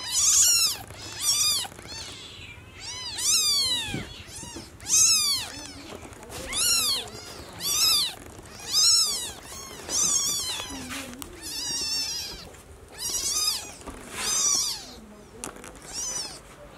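Newborn kitten crying over and over: about a dozen high-pitched mews, each rising and then falling in pitch, roughly one a second. These are the isolation cries of a newborn kitten left away from its mother.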